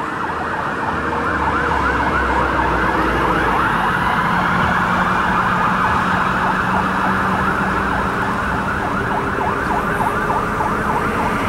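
Fire engine siren in a fast yelp, short rising-and-falling sweeps repeating several times a second, over the low rumble of the moving truck's engine.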